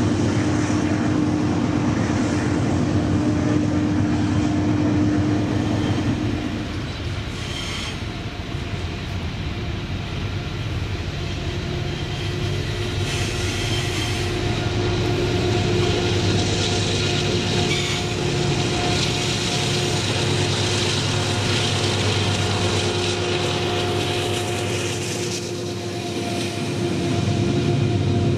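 Covered hopper wagons of a long freight train rolling past on a curve: a continuous rumble of wheels on rail, with a thin steady squeal from the wheels over it.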